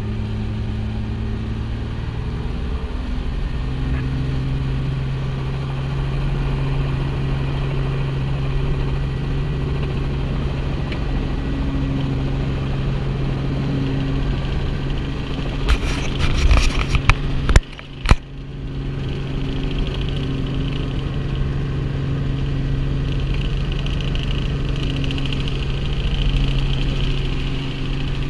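Light Robinson helicopter's engine and rotor heard from inside the cabin, a steady drone as it lifts off and flies low. About two-thirds of the way through there are a couple of seconds of louder rushing noise, a sharp click and a brief drop in sound before the drone returns.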